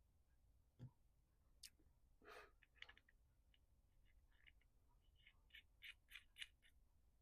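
Near silence with faint clicks and light taps of small carburetor parts being handled during a rebuild: a few around two to three seconds in and a quick cluster of sharper clicks near the end.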